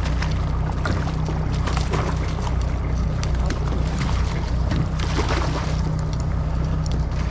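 A boat engine idling with a steady low hum, with scattered small clicks and knocks over it.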